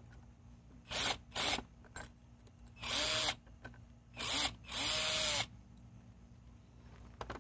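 Cordless drill backing the screws out of metal drawer pulls on a solid-wood cabinet, run in five short bursts, each spinning up and winding down.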